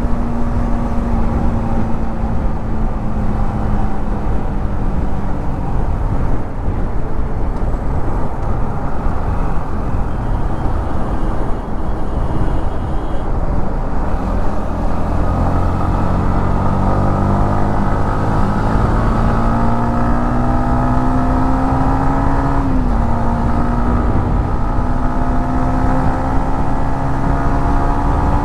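Yamaha MT-15's single-cylinder engine while riding, over steady wind and road rush. The revs fall away over the first several seconds, then climb steadily from about halfway, with one short dip a little past two-thirds of the way through before climbing again.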